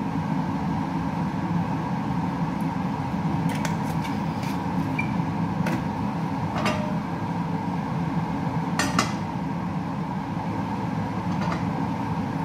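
Kitchen range hood extractor fan running with a steady hum, broken by a few light clicks.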